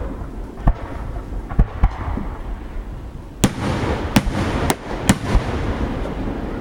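Fireworks display: a string of sharp bangs from shells bursting overhead, about eight in all. From about three and a half seconds in, the bangs come closer together over a denser wash of rumble.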